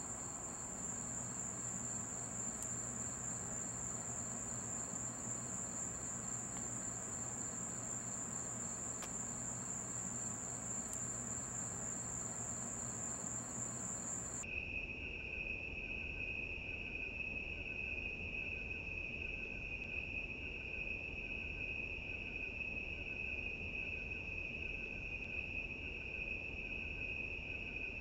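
Steady, high-pitched chorus of night insects trilling without a break. About halfway through it switches abruptly to a lower-pitched insect chorus.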